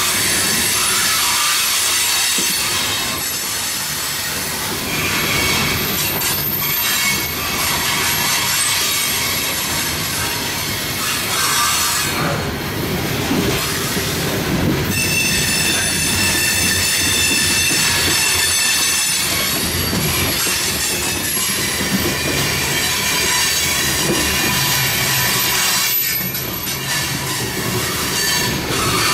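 Loaded coal hopper cars rolling past with a steady rumble and some clickety-clack of wheels over rail joints. Several high-pitched wheel squeals come and go, strongest in the second half.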